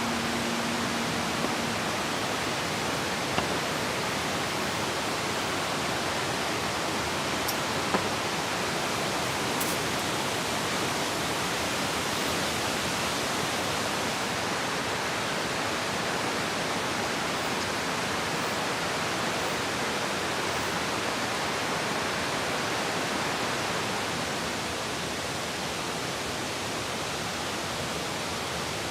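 Steady rain falling as an even hiss, with a couple of faint ticks about three and eight seconds in.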